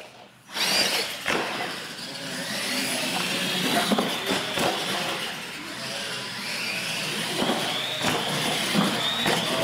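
R/C monster trucks racing on a concrete floor, their electric motors and gears whining. The sound starts suddenly about half a second in, with scattered knocks as the trucks hit the ramps and land.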